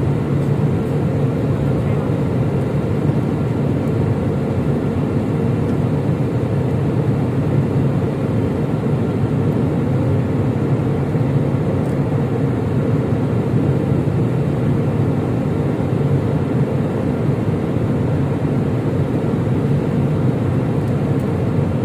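Steady engine and air noise inside an airliner's passenger cabin: a constant rush, strongest in the low end, that does not change.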